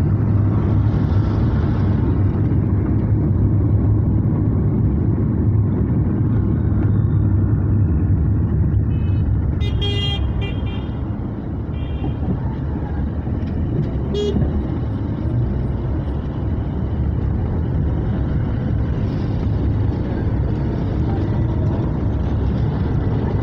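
Steady rumble of a car's engine and tyres on a wet road, heard from inside the cabin. Vehicle horns honk in a few short blasts about ten seconds in, and once more a few seconds later.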